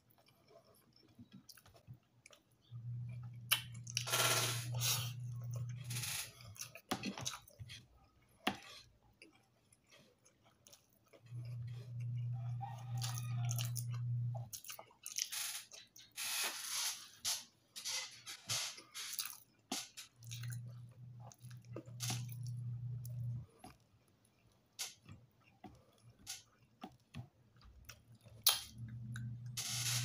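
Close-up chewing and crunching of fried tilapia and rice eaten by hand, with wet mouth clicks and smacks. A low steady hum comes and goes four times, each time for about three seconds.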